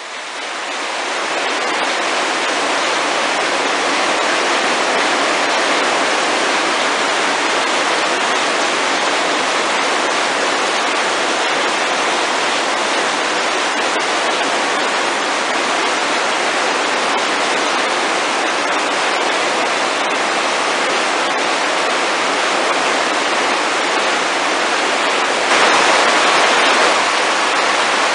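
Heavy downpour of rain, a steady dense hiss that rises in over the first couple of seconds and grows louder for a moment near the end.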